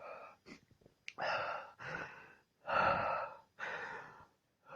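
A man breathing heavily in and out, about six breathy breaths in a row with short gaps between them, and one small sharp click about a second in.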